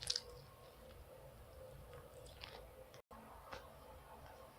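Faint sticky squelches and small crackling pops of slime being squeezed and stretched by hand, a few short clicks standing out. The slime has just been softened in hot water.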